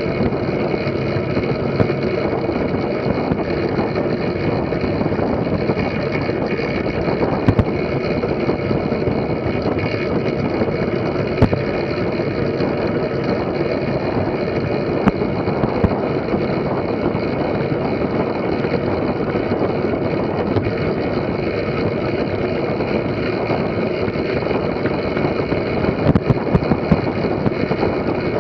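Steady rush of wind and tyre noise picked up by a camera mounted on a fixed-gear track bike riding laps on a wooden velodrome track, with a few small knocks along the way.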